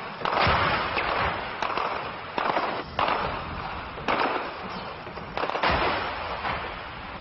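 Gunshots in a war zone: about half a dozen single shots a second or so apart, each followed by a long echo that dies away.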